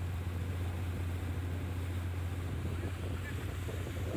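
Small fishing boat's engine running at a steady low drone while under way.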